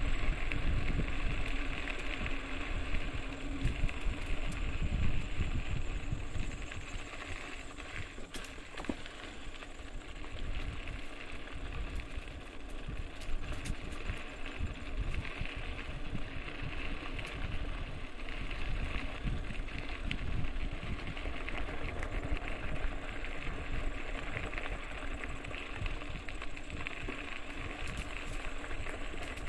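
Electric mountain bike being ridden along a trail: a continuous rumble of tyres and wind on the microphone, a little louder in the first few seconds, with a few scattered clicks.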